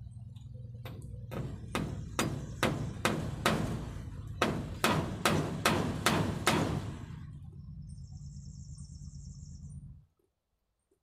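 Hammer driving a nail into a wooden rafter overhead: about a dozen sharp blows, a little over two a second, over a steady low rumble.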